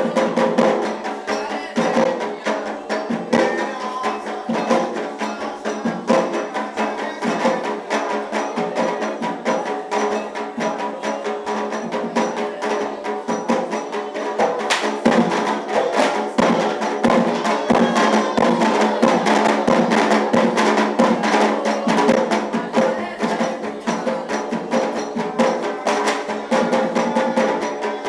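Afro-Brazilian ritual music: drums and a clacking, wood-block-like percussion play a fast, steady rhythm, with sustained pitched sound underneath.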